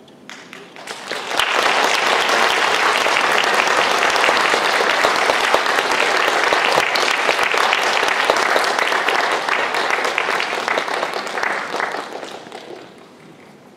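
Audience applauding in a concert hall. The clapping starts about a second in, quickly swells to a steady level, and dies away near the end.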